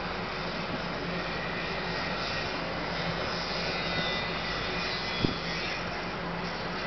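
Steady distant city rumble of traffic, swelling a little in the middle, with one sharp click about five seconds in.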